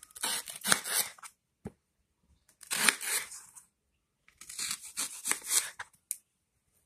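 Kitchen knife slicing crosswise through a raw green banana, peel and all, on a plastic chopping board: three crisp cutting strokes with short taps of the blade on the board between them.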